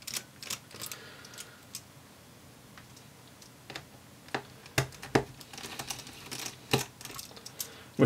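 Light, scattered clicks and taps of a small Phillips screwdriver backing out a laptop's battery screws, and of the tiny screws and the driver being set down on the desk, more of them in the second half.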